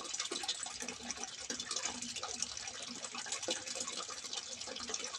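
Water trickling and splashing steadily from a small spout.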